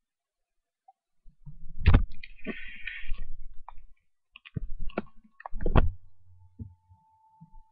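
Siberian Husky gnawing on a rubber toy bone: irregular clicks and soft knocks with low thumps in between, starting about a second in.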